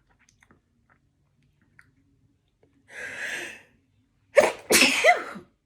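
A woman takes a hissing breath about three seconds in, then lets out one loud sneeze near the end, part of a run of repeated sneezes.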